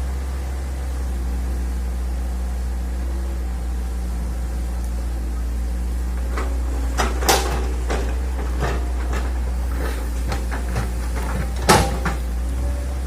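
Hitachi excavator's diesel engine running steadily while digging a ditch, with a run of sharp knocks and clanks about seven seconds in and one loud clank near the end.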